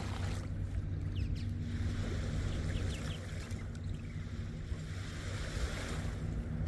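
Small waves washing in on a sandy lake shore, swelling and easing, over a steady low hum.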